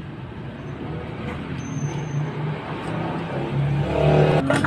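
Road traffic: a motor vehicle engine running, getting louder about four seconds in.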